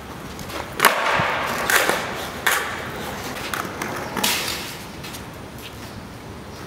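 Skateboard on smooth concrete: about four sharp wooden clacks of the deck and tail hitting the ground, with the wheels rolling in between and dying away toward the end.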